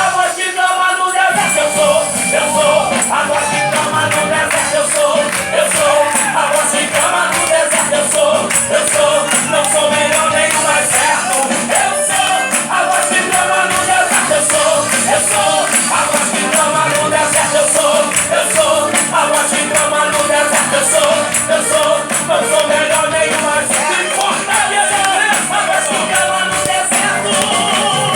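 Live gospel worship music with a tambourine shaken steadily to the beat.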